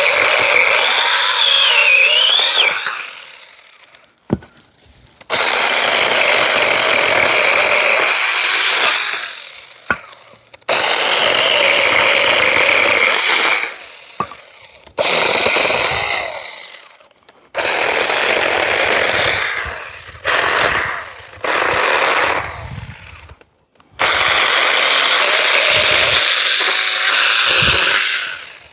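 Cordless electric pole saw's 4-inch mini chainsaw running in repeated bursts of one to four seconds while trimming branches. Each time the trigger is let go, the motor and chain wind down before the next burst, about seven or eight times.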